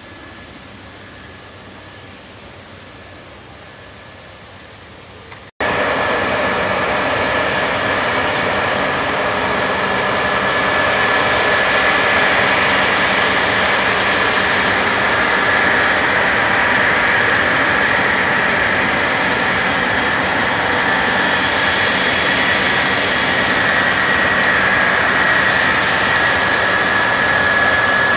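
John Deere X9 combine harvesters running steadily while harvesting wheat: a continuous machine drone with a steady high whine on top. About five and a half seconds in, the sound cuts abruptly to a much louder, closer version of the same steady running.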